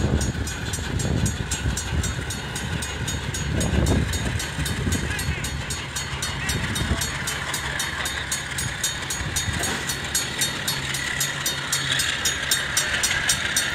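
Freight train rolling through a level crossing: a KiwiRail DX-class diesel-electric locomotive going by, then loaded hopper wagons, a steady rumble of steel wheels on the rails. Over it the crossing bell rings in a rapid, even beat.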